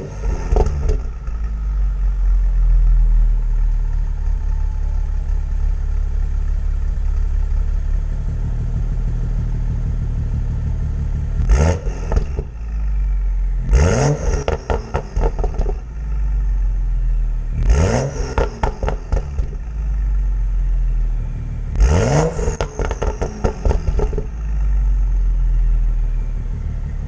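BMW M235i's 3.0-litre turbocharged inline-six, breathing through an Evolution Racewerk catted downpipe and the stock muffler, running at a high cold-start idle just after firing up. It is blipped four times, each rev rising sharply and followed by a rapid string of crackles as the revs fall back.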